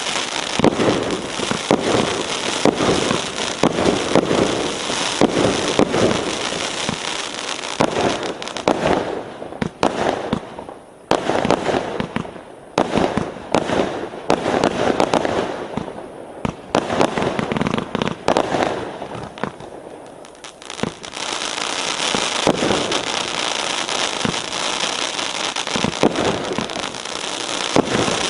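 A 1-inch, 339-shot firework cake firing a rapid barrage of launches and aerial bursts, with dense crackling from the crackling effects. The barrage thins out about halfway through, then builds back up, thick and continuous, toward the end.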